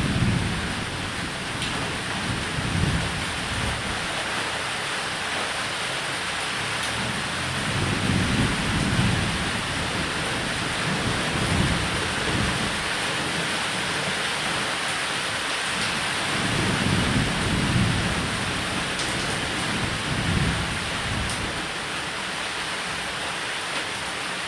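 Steady heavy rain falling on a roof, with low rumbles of thunder that swell and fade several times.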